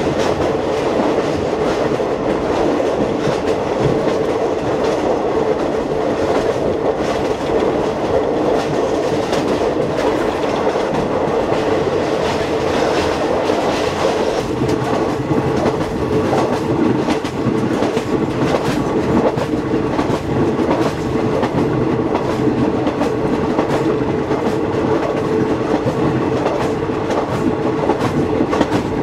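A passenger train running along the track, heard from inside a carriage: the steady noise of the wheels on the rails and the moving coach.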